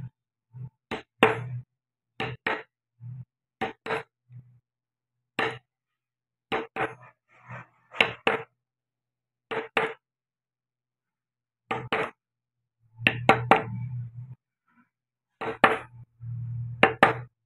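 A wood-carving chisel tapped with a mallet as it cuts into wood: sharp taps, mostly in quick pairs, with irregular pauses between them and a brief ring after each. The strikes come more densely and louder in the last few seconds.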